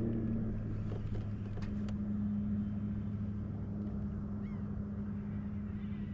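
A boat motor runs at a steady pitch, a low even hum. A few faint bird chirps come about four and a half seconds in.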